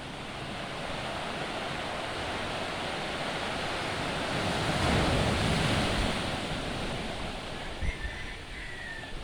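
Ocean surf breaking on the shore, a wash of noise that swells to its loudest about halfway through and then eases off, with wind rumbling on the microphone.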